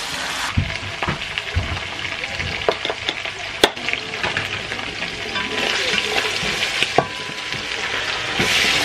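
Hot oil sizzling in a frying pan, with sharp clicks and knocks of a spatula and a food-processor bowl as blended red pepper is scraped into the pan. The sizzling grows louder near the end.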